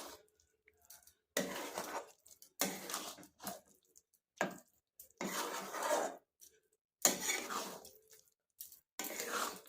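A spoon scraping around a pan as thick amla-and-jaggery chutney is stirred. It goes in separate strokes of about a second each, with short pauses between them.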